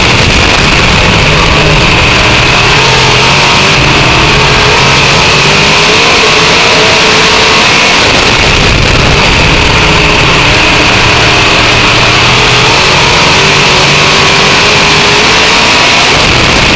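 Dirt-track race car engine heard from inside the cockpit, very loud and continuous. Its pitch rises and falls as the car throttles on and off around the oval, over a steady rush of wind and tyre noise.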